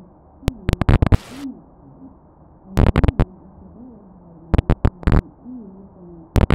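Clusters of sharp clicks, four or five in quick succession, coming about every one and a half to two seconds, over a faint low wavering tone that slides up and down.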